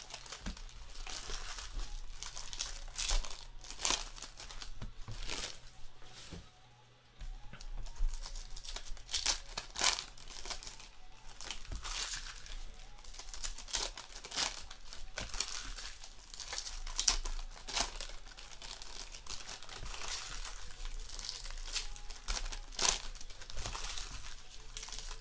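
Foil trading-card pack wrappers crinkling and tearing as packs are ripped open and the cards inside are handled, a busy string of short crackles with a brief lull about seven seconds in.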